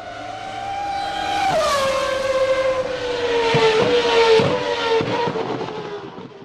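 A race car's engine running at high revs as it approaches and passes, swelling up and fading away. Its pitch drops sharply about a second and a half in, then sinks slowly, with a few short crackles near the middle.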